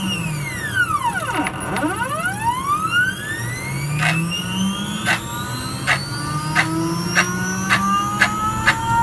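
Stepper motors of a gantry axis whining as they drive the carriage under an FPGA controller. The whine glides down in pitch to a near stop about a second and a half in, then glides back up as the motor accelerates again, the pitch following the step rate. Sharp clicks come every second or so, closer together near the end.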